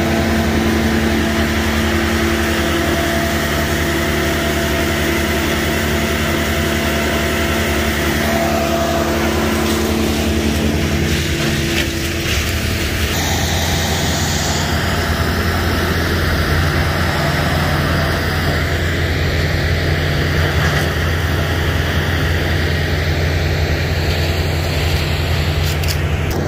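A heavy machinery engine running steadily throughout, its tone shifting about halfway through.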